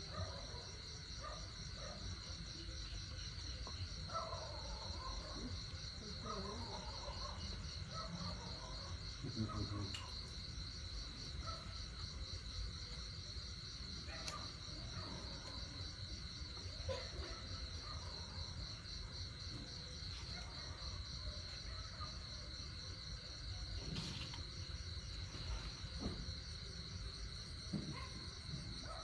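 Crickets trilling steadily as a constant high, pulsing chorus, over a low background hum.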